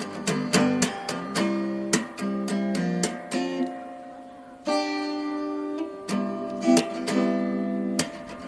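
Acoustic guitar music: plucked notes and strummed chords, with one chord left to ring and fade about halfway through before the playing picks up again.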